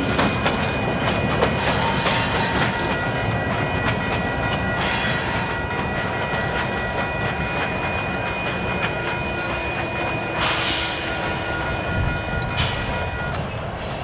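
Train rolling past, its wheels clicking over rail joints, with a thin steady high ring that stops near the end.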